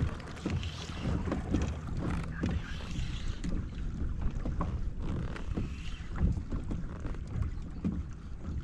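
Water sloshing against a Hobie pedal kayak's plastic hull, with irregular low knocks two or three a second, and wind buffeting the microphone.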